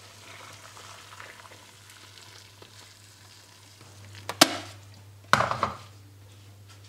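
Hot water, just off the boil, poured from an electric kettle onto blocks of dried mie noodles in a pot, a steady splashing trickle. As the pour ends come two sharp knocks, about a second apart, the loudest sounds here.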